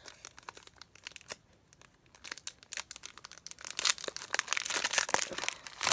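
Foil wrapper of a Pokémon trading-card booster pack crinkling as it is handled and torn open: a run of sharp crackles, sparse at first and much denser from about two seconds in.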